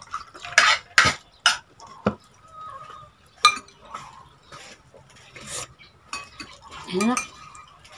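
Dishes and cutlery clinking and knocking on a table in separate sharp knocks, one every second or so, with a short rising vocal sound near the end.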